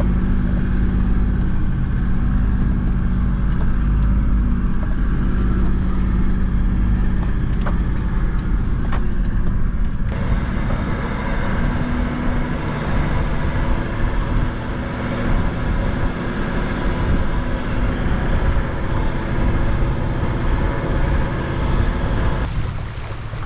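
A vehicle driving along a dirt track. For the first ten seconds its engine and road rumble are heard from inside the cabin, with a steady engine drone. About ten seconds in it switches to the outside of the moving vehicle, where engine, tyre and wind noise are heard.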